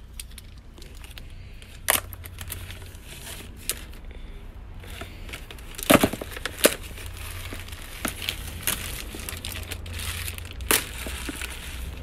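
A plastic bag crinkling and rustling as strands of magnetic hematite beads are handled and packed in it, with sharp clacks now and then from the hard beads knocking together, loudest about six seconds in.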